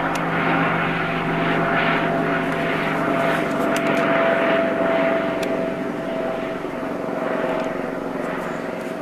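Helicopter circling overhead, its rotor and engine making a continuous drone with a steady whining tone, growing a little fainter in the second half as it moves off.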